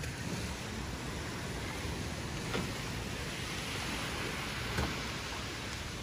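Small waves washing onto a sandy beach, a steady hiss of surf, with two faint knocks a couple of seconds apart.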